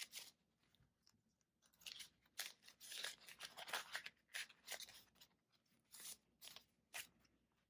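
Paper dollar bills handled and slid into a clear plastic binder envelope: a series of faint, crisp rustles and crinkles, starting about two seconds in.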